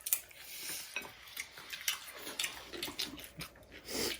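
Cutlery clicking and scraping against plates while chow mein is being eaten, with many short sharp clicks and a soft hissing eating noise just before the end.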